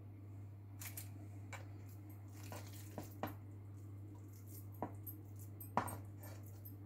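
Wooden spatula scraping and tapping against a nonstick frying pan while potato stuffing is scooped and pressed into bell pepper halves: scattered soft clicks and knocks, the loudest near the end. A steady low hum runs underneath.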